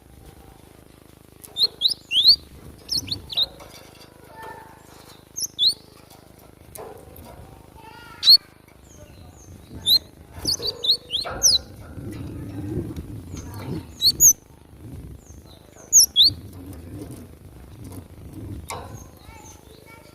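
Cinereous tits (gelatik batu) calling in bursts of short, sharp, high chirps, two to four in quick succession, with pauses between, as in a squabble between rival birds. A low rumble of background noise rises for a couple of seconds mid-way.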